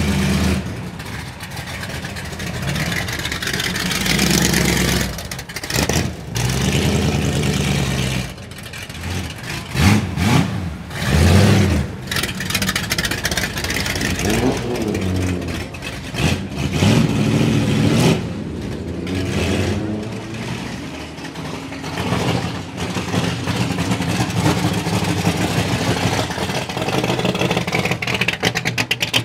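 1963 Ford Galaxie 500 race cars with 7.0-litre Ford 427 V8s pulling away at low speed, the engines running with repeated throttle blips and several short rising revs, the sharpest near the middle.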